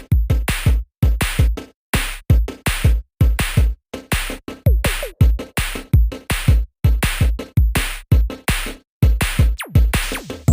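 Background electronic music with a drum-machine beat: deep kick drums and sharp hits in a chopped, stop-start rhythm.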